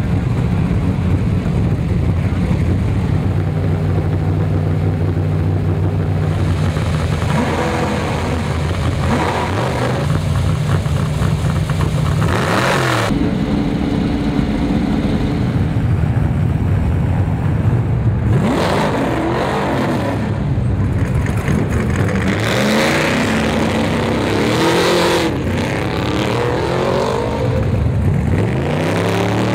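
Off-road race truck engines idling steadily, then revved again and again, the pitch rising and falling with each blip of the throttle. About twelve seconds in there is one loud, brief surge.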